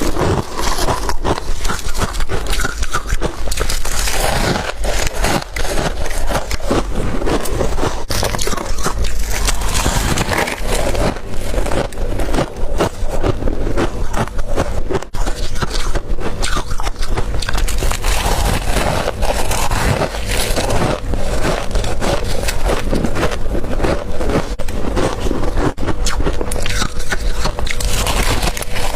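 Flaky freezer frost being bitten and chewed close to the microphone: a dense, continuous crunching and crackling.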